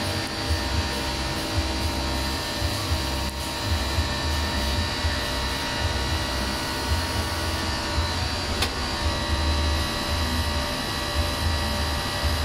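CNC lathe running as a cutting tool turns grooves into an 80% tungsten dart barrel: a steady machine hum with several steady whining tones over an uneven low rumble. A single sharp click about eight and a half seconds in.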